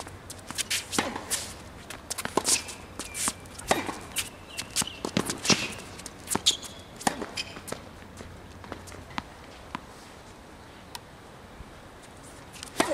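Tennis rally on a hard court: sharp racket strikes on the ball, ball bounces, quick footsteps and a few short squeaks of shoes on the court. The hits thin out about seven seconds in, leaving only occasional taps, and the strikes resume near the end.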